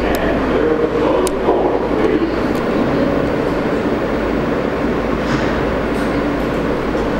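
New York City subway train standing at the platform with its doors open, its equipment giving a steady hum and rumble, with a few faint clicks.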